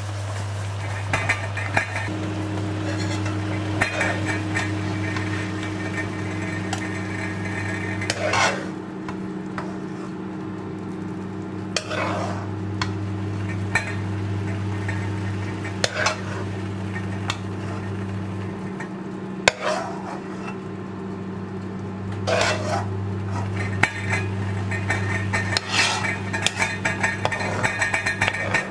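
A metal spoon and a utensil scraping and knocking against a nonstick wok while mushrooms, onion and cherry tomatoes in a little liquid are stirred and scooped out. The scrapes come every second or two and grow busier near the end. Under them is a low steady hum that cuts out twice for a few seconds.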